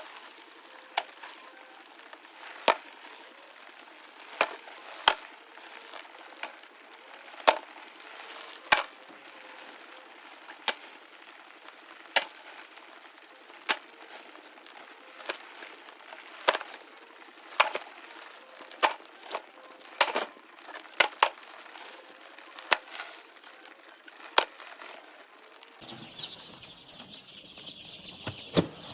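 Sharp, irregular taps or knocks, roughly one or two a second, over a faint hiss. A few seconds before the end the background changes to a steadier, higher-pitched sound.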